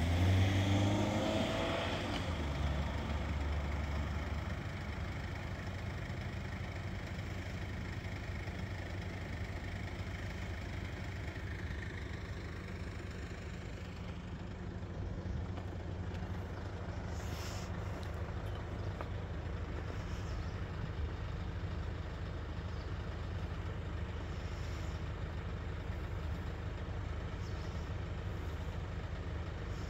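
Steady low rumble of road vehicles idling, with a louder passing or pulling-up vehicle sound in the first two seconds.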